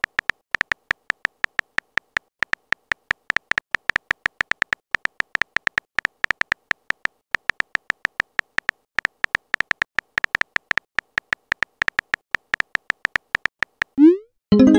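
Simulated phone-keyboard typing clicks from a texting-story app, several short tapping ticks a second as a message is typed out. Near the end, a quick rising swoosh as the message is sent, followed by a louder pop-like chime.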